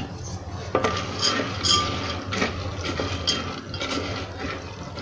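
Boondi being stirred into sugar syrup in a steel pot with a spatula: irregular wet scrapes and light knocks of the spatula against the pot.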